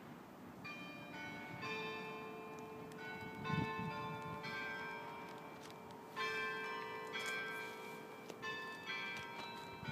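Several church bells ringing, struck in an uneven pattern, each tone ringing on under the next strokes. A low thump about three and a half seconds in.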